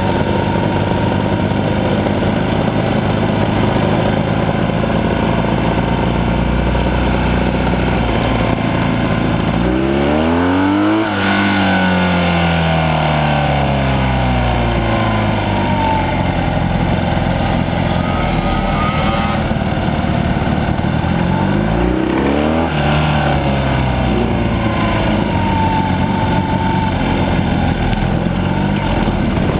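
Classic BMW motorcycle engine running, heard from on board the bike while it rides. About a third of the way in, the revs rise and then fall away slowly; they do so again about three quarters of the way in.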